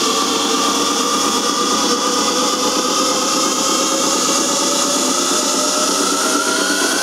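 Psytrance played very loud over a festival PA, recorded distorted and thin in the bass, with a synth line that slowly rises in pitch over a steady repeating beat.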